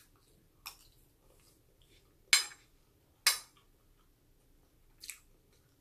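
Metal spoon clinking against a ceramic plate, four short sharp clinks, the loudest two in the middle.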